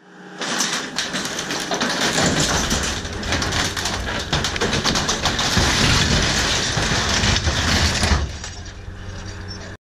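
Old corrugated-metal shed creaking, scraping and crashing over as a skid-steer loader pulls it down with a line, with the loader's engine running steadily underneath. The loudest crash comes about eight seconds in, then the sound drops and cuts off suddenly near the end.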